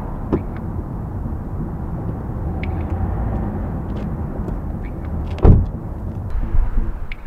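A car door shuts with one heavy thump about five and a half seconds in, over a steady low rumble. Music with an even pulse starts near the end.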